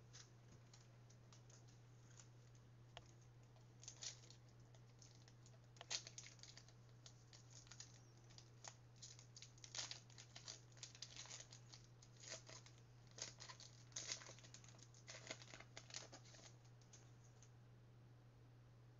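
Faint, scattered rustling, crinkling and soft clicks of Panini Mosaic trading cards and their packs being handled, over a steady low hum. The rustles stop a little before the end.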